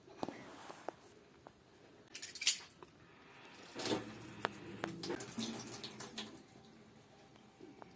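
Faucet repair handling: a few sharp metallic clicks and knocks, and a brief loud clatter about two and a half seconds in. From about the middle there are a few seconds of water running from the tap, with small knocks over it.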